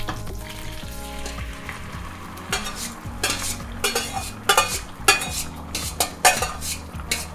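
Crushed peeled tomatoes poured into hot olive oil in a frying pan, sizzling, while a metal spoon scrapes the last of them out of a stainless steel bowl in a series of short scrapes from about two and a half seconds in.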